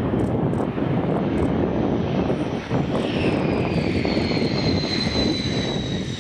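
F-15 fighter jet's twin jet engines running loud as it lands and rolls out, with a high whine that comes in about three seconds in and slowly falls in pitch.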